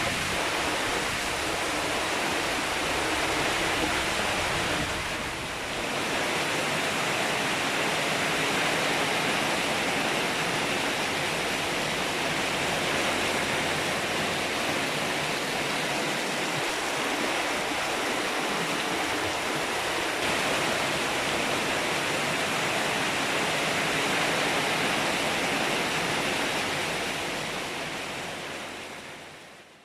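Heavy storm rain with wind, a steady rushing hiss that fades out at the very end.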